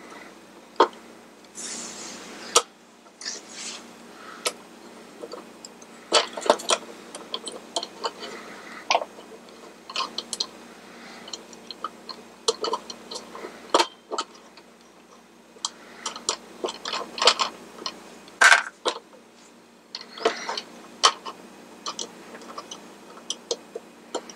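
Irregular small clicks and taps with a few brief scrapes: small metal and plastic parts being handled and fitted into the centre hub of a plastic carousel base.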